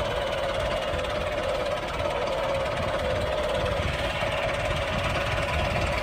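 Toy remote-control excavator running, a steady rough mechanical hum with no breaks.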